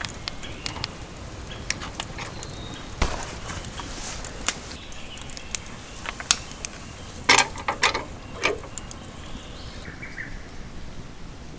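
Wood fire crackling, with irregular sharp pops and a louder run of pops about two-thirds of the way through.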